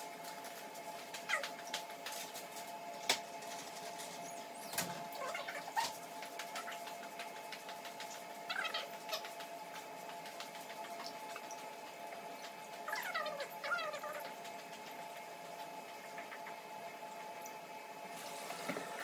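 Small clicks and knocks of handling at a kitchen sink over a steady two-note hum, with a few short wavering pitched calls, the clearest about two-thirds of the way through.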